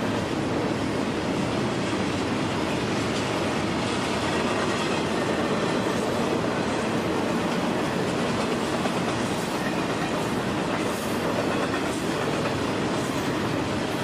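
Freight train cars rolling past close by, a steady rumble of steel wheels on the rails.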